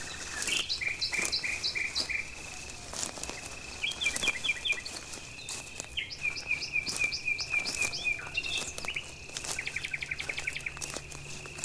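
Outdoor insect chorus: a steady high-pitched trill runs throughout, and short runs of quick chirps come every couple of seconds, the last run faster. Scattered light ticks and taps sound over it, and a faint low hum joins in during the second half.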